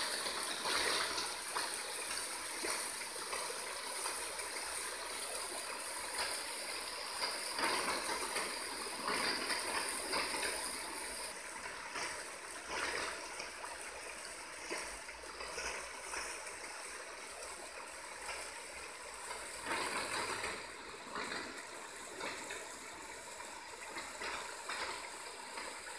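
Running, gurgling flood water, a continuous rush that swells and eases by turns, with a faint steady tone beneath it.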